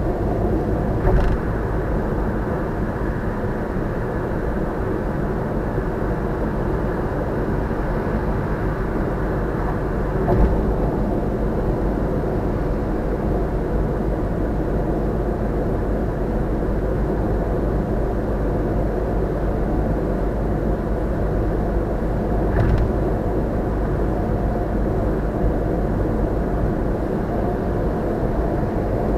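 Steady road and tyre noise of a car cruising at constant speed on an expressway, heard inside the cabin. The tyres thump briefly over road joints three times: about a second in, about ten seconds in, and about two-thirds of the way through.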